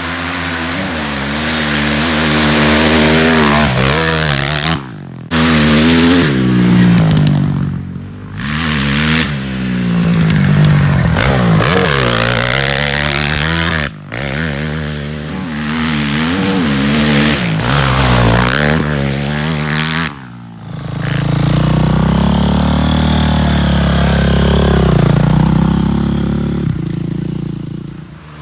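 Single-cylinder four-stroke engine of a Honda CRF450R dirt-bike trike revving hard, its pitch rising and falling again and again as it accelerates and backs off. The sound drops out sharply several times.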